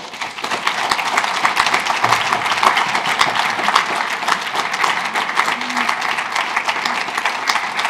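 Audience applauding: many hands clapping in a dense, steady patter that breaks out at once and keeps going.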